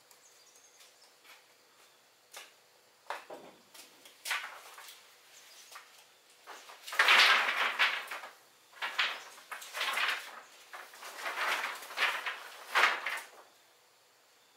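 A run of rough scraping strokes, about one a second, starting a few seconds in, loudest in the middle and stopping shortly before the end.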